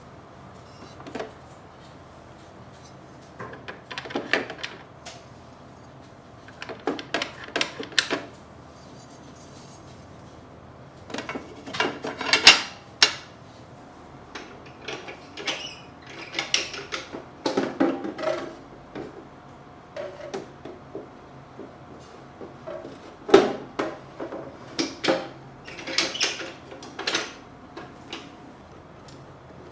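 Kitchen handling sounds: clusters of clicks, knocks and clatters as dishes, cups and utensils are picked up and set down, every few seconds, with the loudest knocks about halfway through and again near three-quarters of the way.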